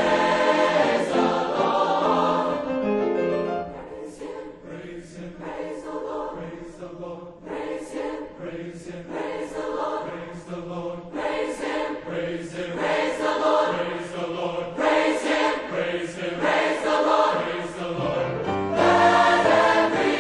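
Mixed-voice choir singing. It is loud at first, drops softer about four seconds in to short, rhythmic phrases, then swells loud again near the end.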